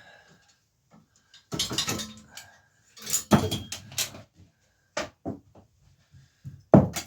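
Bike parts and hand tools clattering and knocking during the stripping of an old bicycle: irregular sharp clanks in a few bunches, with a loud single knock near the end.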